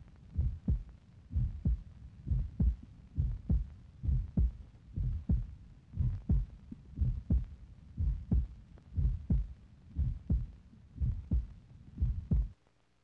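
Low, regular heartbeat-like thumping in pairs, about one pair a second, that stops abruptly shortly before the end.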